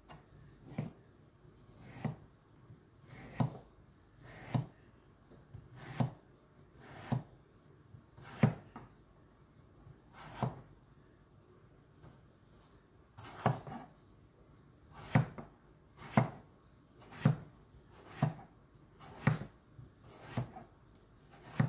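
Chef's knife slicing thin Hasselback cuts into a raw potato held between two wooden spatulas, each stroke ending in a knock as the blade comes down on the wood. About one cut a second, with a short pause about halfway.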